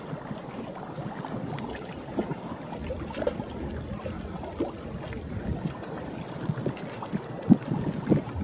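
Wind buffeting the microphone in uneven gusts, with a couple of stronger gusts near the end.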